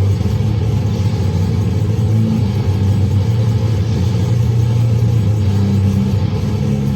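Loud, heavily distorted low-tuned guitar droning on sustained notes that change a few times, with a thick noisy fuzz over them: goregrind noise played live.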